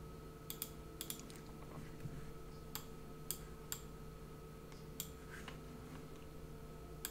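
Faint computer mouse clicks, about nine short sharp clicks with some in quick pairs, spaced irregularly over a steady low electrical hum.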